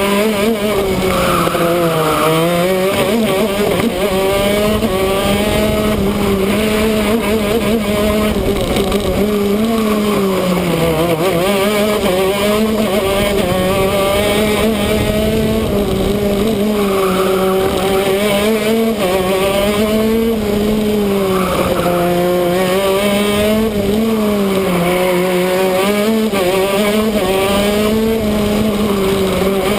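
Shifter kart's two-stroke engine at full racing pace, heard from on board. Its pitch sinks as the kart slows for corners, about five times, and climbs again each time it accelerates out.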